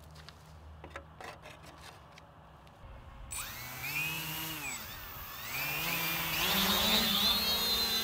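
Electric motors of an H-frame quadcopter spinning up for takeoff after a few light clicks: the whine starts about three seconds in, rises and dips with the throttle, then settles into a louder, steady whine.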